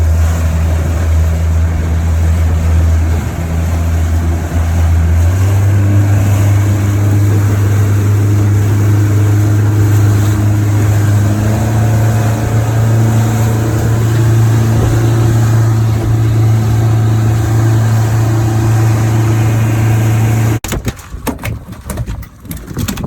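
A boat's outboard motor running steadily under way. Its pitch steps up about five seconds in as it speeds up, and it cuts off suddenly near the end.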